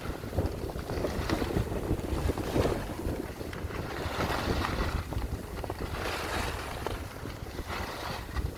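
Wind rushing over the microphone during a fast descent through fresh powder snow, with a swelling swish of snow at each turn, every second or two.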